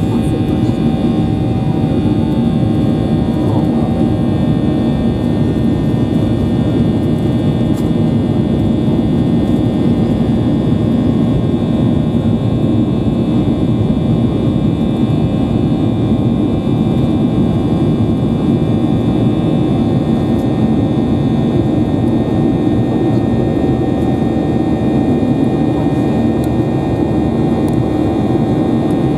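Boeing 737-800's CFM56-7 turbofan engines running steadily, heard inside the cabin: a loud even rush with several steady whining tones over it.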